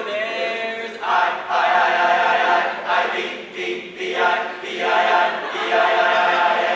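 All-male a cappella group singing in harmony, in phrases with brief dips about a second in and just before four seconds.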